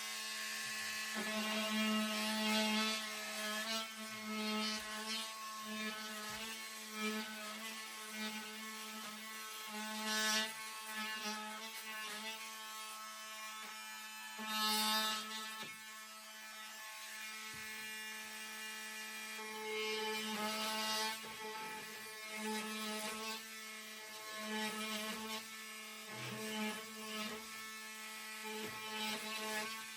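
A power tool running with a steady, buzzing hum as it cuts around the 2x4 boards, swelling louder several times as it bites.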